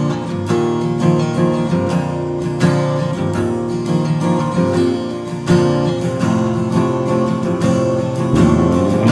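Background music: a song's instrumental passage with acoustic guitar strumming and picking, and no singing.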